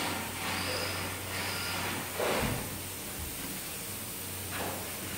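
Airless spray gun hissing in several short bursts as wood stain is sprayed onto a floor, over a steady low hum. A louder bump comes about two seconds in.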